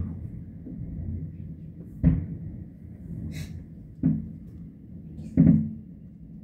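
Distant aerial fireworks shells bursting: four sharp booms, roughly one every one and a half to two seconds, each trailing off into a low rumble.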